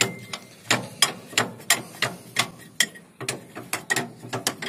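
Ratcheting wrench clicking in uneven strokes, about three a second, as a bolt is screwed in on a combine harvester.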